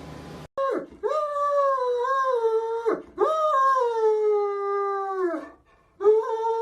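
A dog howling in long, drawn-out calls. A short call comes first, then three long howls with brief breaths between them, each sliding down in pitch as it ends.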